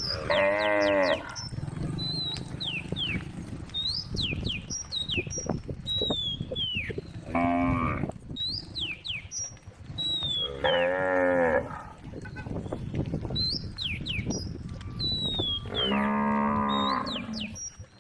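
Cows mooing: four long, deep moos, each a second or so long, several seconds apart.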